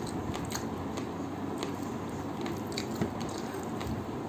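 Eating by hand: fingers squishing rice and chicken curry together on a plate, along with chewing, heard close up as a run of scattered soft wet clicks.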